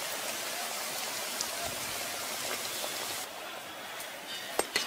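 Oil sizzling steadily as breadcrumb-coated fish chops deep-fry in a kadai over a low flame. The hiss eases a little past the three-second mark, and two sharp clicks of the metal spatula come near the end.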